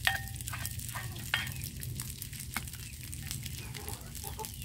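Cooked rice frying in a metal wok over a wood fire, a steady sizzle, the start of making sinangag (fried rice). A metal spoon clinks and scrapes against the pot a few times in the first second and a half, and a sharp knock comes near the end.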